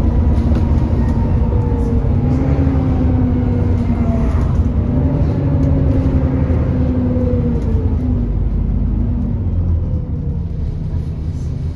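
Alexander Dennis Enviro400 E40D bus heard on board while it is driving: a loud low rumble from the running engine and drivetrain, with a whining tone that slowly falls in pitch over several seconds. The sound eases slightly near the end.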